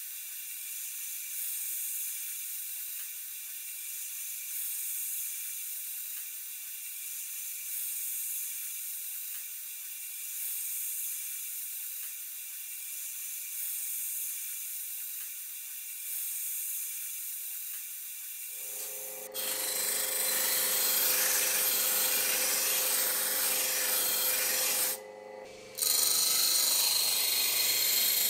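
Air sandblaster hissing steadily as quartz sand is blasted at toy pistol parts inside a blast cabinet. About nineteen seconds in it gives way suddenly to a louder, fuller machine noise with a steady hum, and near the end a motor-driven polishing wheel is buffing a metal part.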